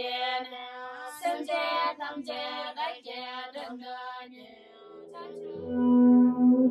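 Soundtrack music: a high voice sings a melody that fades out about four and a half seconds in. About a second later, a loud steady ringing tone with several held pitches begins.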